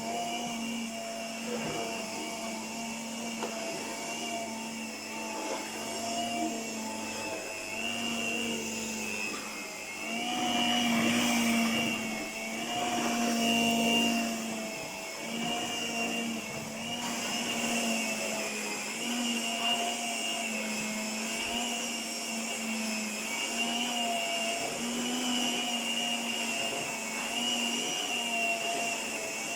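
1978 Princess electric carpet sweeper running, its motor and brush giving a steady whine whose pitch wavers and dips every second or so, louder for a few seconds around the middle.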